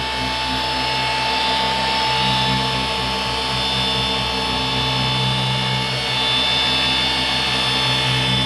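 Milwaukee cordless orbital polisher running steadily under load, its foam pad buffing finishing sealant and perfecting cream into the oxidised paint of a truck hood. It makes a steady high whine over a low hum.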